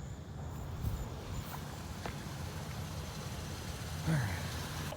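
Steady low rumble of a vehicle engine, with a few faint clicks and a short falling sound about four seconds in.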